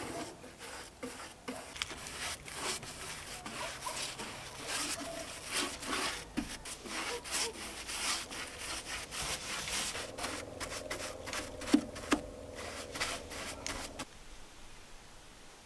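Paintbrush stroking finish onto wooden siding boards: a rhythmic rub of bristles on wood, one or two strokes a second, with a couple of sharper taps a little before the strokes stop near the end.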